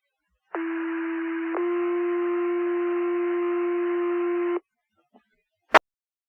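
Two-tone sequential fire pager alert over the dispatch radio: one steady tone for about a second, then a slightly higher tone held for about three seconds, alerting the station's volunteer firefighters before the voice page. A sharp click comes about a second after the tones stop.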